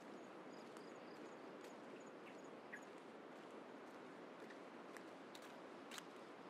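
Footsteps of a walker on a concrete path: scattered light clicks, a little stronger in the second half, over a faint steady outdoor hiss. A small bird chirps in a quick repeated series, about three or four notes a second, through the first half.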